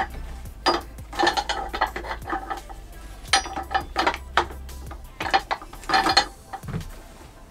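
Hard plastic parts of a Mainstays office chair clicking and clattering as the ribbed back-support bar and its bracket are handled and pushed together during assembly. The sound comes in several bursts of sharp clicks and rattles.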